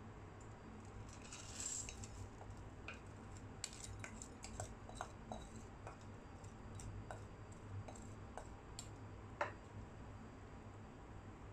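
Crumbled fried boondi being poured from a bowl into a pot of sugar syrup: a short rustling pour, then scattered light clicks and ticks as the pieces drop in and the bowl knocks the pot, with one sharper click late on.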